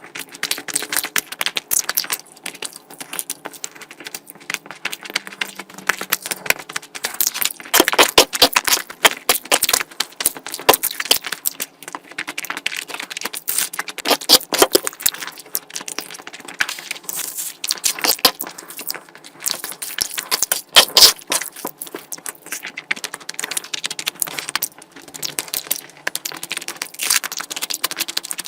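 Close-miked eating sounds of a person eating curry: a dense, irregular run of wet chewing clicks and smacks, with louder stretches about a third of the way in and again about three quarters through.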